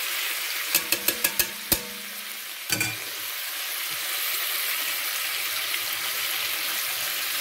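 Chicken escalopes and sliced shallots sizzling as they brown in butter in an enamelled cocotte. Metal tongs click several times in quick succession about a second in, and give one louder knock against the pot a moment later.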